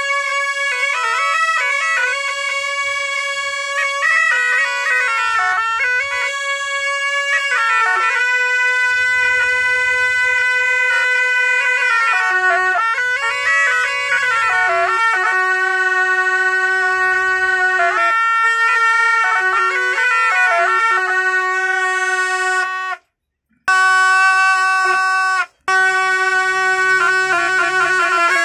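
A pair of gyaling, Tibetan double-reed shawms, playing a slow melody together, with notes that bend between pitches early on and long held notes later. Twice near the end the sound cuts out completely for a moment.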